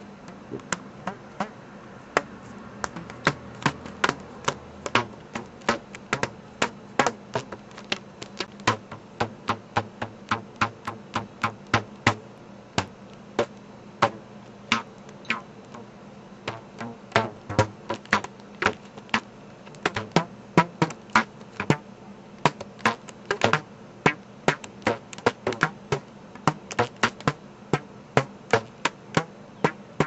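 A stretched rubber band plucked over and over by hand: short, dull twanging snaps, about two or three a second, at an uneven rhythm.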